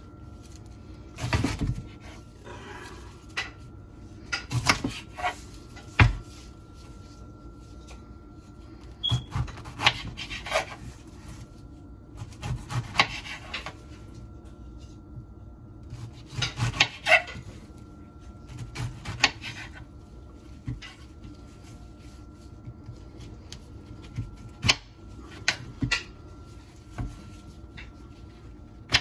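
Kitchen knife sawing through a pineapple's tough rind and flesh on a cutting board, in irregular bouts of rasping cuts with sharp knocks as the blade meets the board.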